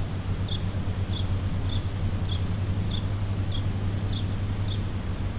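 A steady low hum, like a distant engine or machinery, with a short high chirp repeating about every 0.6 seconds, steadily, over it.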